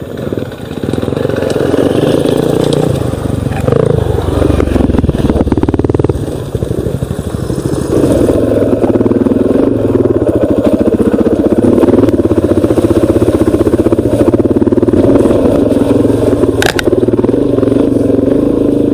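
Dirt bike engine running as the bike rides along a trail. The revs rise and fall between about four and six seconds in, then hold fairly steady.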